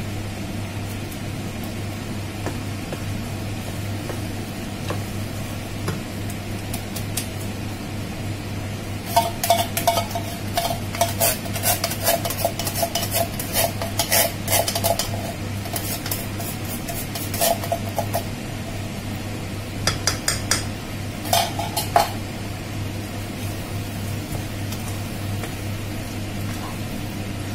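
A wooden spatula stirring minced lamb and tomato sauce in a non-stick frying pan, scraping and knocking against the pan in bursts from about nine seconds in and again around twenty seconds. Underneath is faint sizzling and a steady low hum.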